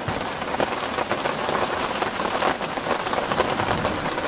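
Heavy rain falling steadily: a dense hiss with many small sharp ticks of drops striking.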